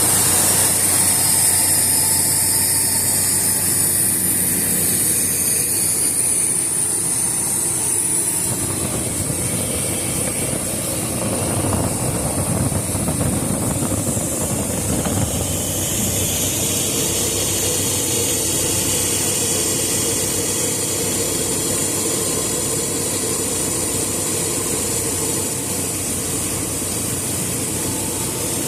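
1994 Chevrolet V8 engine running at idle with its air cleaner off, with a high hiss over it that fades after the first several seconds. The engine has an intermittent misfire, which the mechanic traces to spark plug wires lying against the exhaust and arcing.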